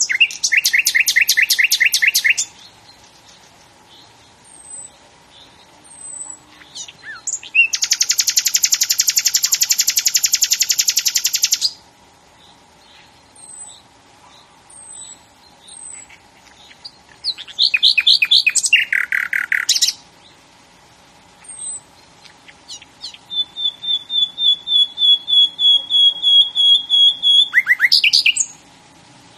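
A songbird singing four loud phrases of rapid trills and quickly repeated notes, with pauses of a few seconds between them. Faint short high calls from other birds sound in the gaps.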